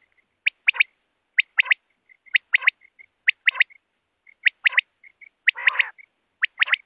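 Male common quail singing its three-note 'wet-my-lips' song: a single note, then a quick pair, repeated about once a second, with faint soft notes between the phrases.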